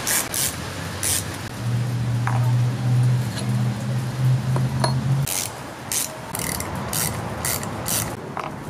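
Hand tool working on a cast-aluminium throttle body: a series of short, sharp metal-on-metal strokes, coming about two a second in the second half. A low steady hum runs underneath from about two to five seconds in.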